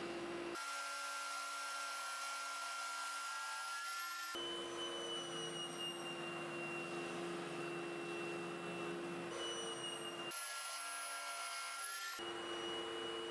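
Table saw running with a steady whine while a hardwood strip is fed through it in several passes to cut a groove. The tone shifts abruptly about four times as one pass gives way to the next.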